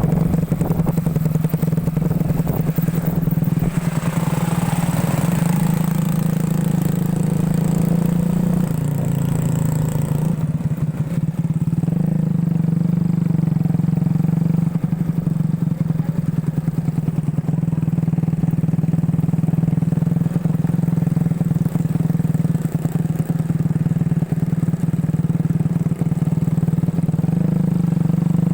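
Motorcycle engine of a homemade ATV running steadily, its pitch holding nearly constant.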